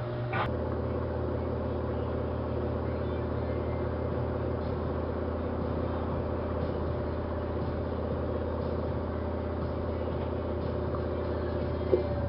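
LG washing machine running with a blanket load: a steady motor hum and whine that holds one pitch, with a click about half a second in and another near the end.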